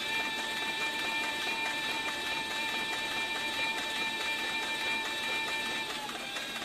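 HighText CB4500 heavy-duty triple-feed leather sewing machine stitching a saddle skirt at a steady speed: a steady motor whine over the even, rapid clatter of the needle strokes. About six seconds in the whine drops slightly as the machine eases off.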